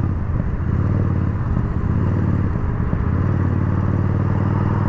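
Yamaha Bolt's air-cooled V-twin engine running steadily while the motorcycle is ridden, at an even pitch that firms up a little in the second half.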